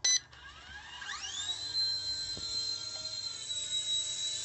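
A short electronic beep, then the XK K127 micro RC helicopter's electric motor and rotor spin up in a rising whine about a second in. The whine levels off into a steady high pitch as the one-key auto-takeoff lifts the helicopter into a hover.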